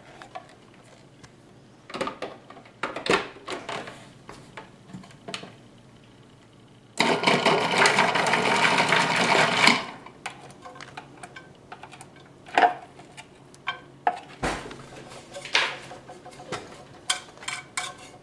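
Countertop food processor running in one short burst of about three seconds while it minces fresh ginger; it starts abruptly about seven seconds in and cuts off near ten. Around it come scattered clicks and knocks from handling the bowl and lid, and near the end clinks of a utensil stirring in a skillet.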